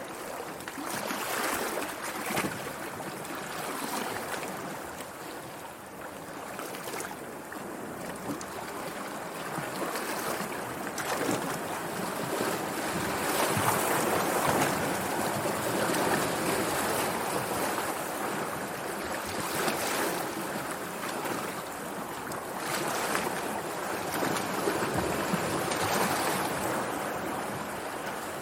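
Sea waves washing onto a beach, a continuous surf hiss that swells and eases every few seconds.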